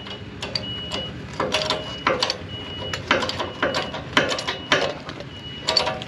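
Hydraulic bottle jack being hand-pumped to raise a pine log on a sawmill bed, giving a series of irregular metallic clicks and clanks from the handle and jack.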